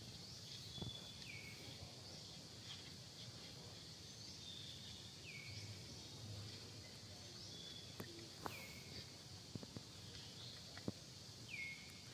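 Faint forest ambience: a steady high insect drone, with a bird repeating a short call that falls in pitch, four times, about every three to four seconds. A few faint sharp clicks come in the second half.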